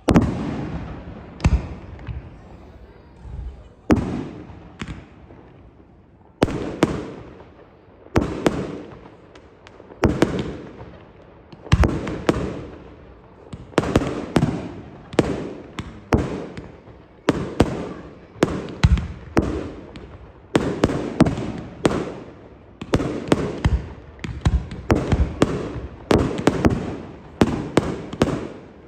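Aerial fireworks shells bursting one after another, each a sharp bang followed by a fading rumble. The bangs come about every one to two seconds at first and grow closer together in the second half.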